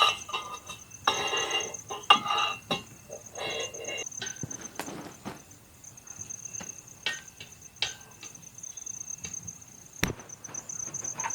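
Crickets trilling steadily and high. Over them come scattered sharp clicks and knocks, with a few short rustling scrapes in the first few seconds.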